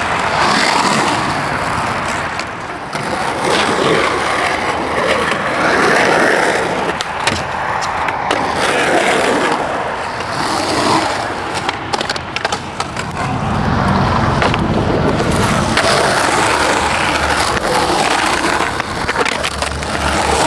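Skateboard wheels rolling over rough concrete, a steady gritty roll with a few sharp clacks, and a deeper rumble for a couple of seconds about two-thirds through.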